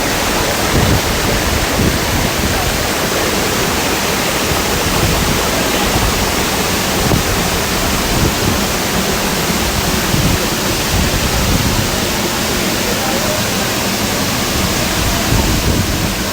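Waterfall: water pouring down in a loud, steady rush.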